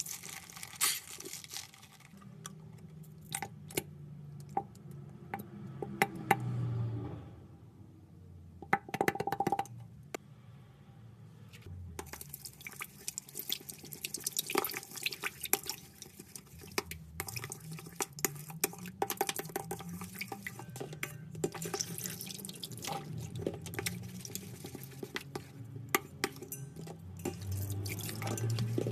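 Water poured and dripping into a stainless steel bowl of blue glitter slime mixture, then the wet mixture stirred with a plastic spoon, with many sharp clicks and taps against the bowl.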